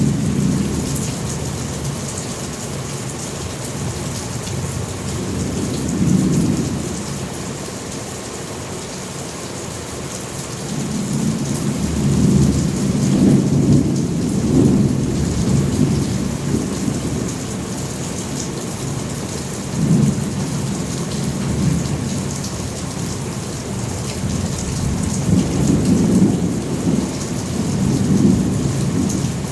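Steady rain with thunder rumbling low in several long swells that rise and fade, the longest through the middle and another near the end.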